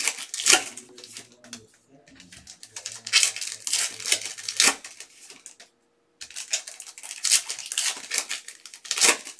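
Foil trading-card packs being torn open and crinkled by hand, in three bouts of crackling with short pauses between them.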